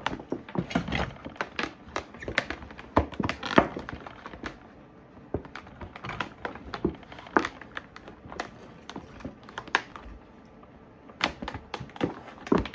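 A collapsible camping bucket being handled: irregular crinkling, clicks and knocks of its stiff coated fabric and plastic parts as it is twisted and pulled open by hand.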